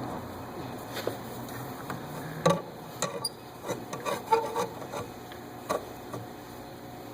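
Hands and tools working at a stuck fuel-line fitting: scattered clicks and knocks with some rubbing. The sharpest are about two and a half seconds in and around four seconds.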